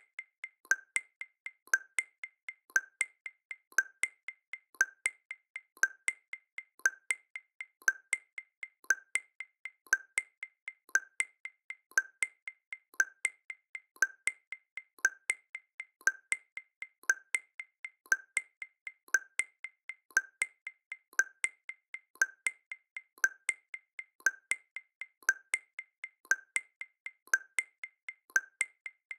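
Background percussion track of steady wood-block-like clicks: a stronger click about once a second with lighter clicks in between, repeating evenly.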